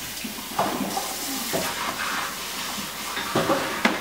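Kitchen tap running into the sink as a container is rinsed, with a few knocks of dishes or containers against the counter or sink.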